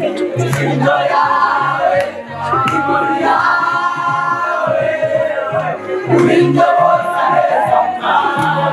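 Music with a steady beat and several voices singing together, over the voices of a celebrating crowd.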